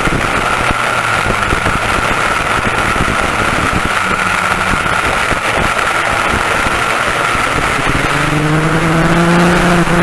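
Twin West Bend 820 two-stroke kart engines running at high revs at racing speed, with a steady rush of wind and track noise. About eight seconds in, a lower engine note joins and the sound grows a little louder.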